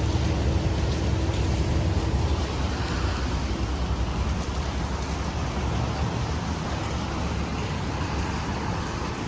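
Steady low rumble of a fire truck's diesel engine idling. A faint steady tone stops about three and a half seconds in.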